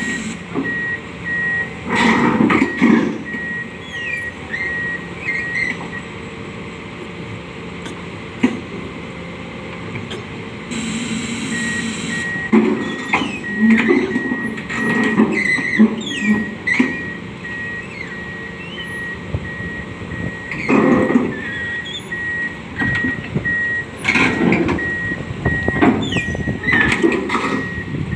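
Backhoe working: its reversing alarm beeps steadily at one pitch, stops for about five seconds in the middle, then starts again, over the running engine and scattered knocks and clatter from the machine.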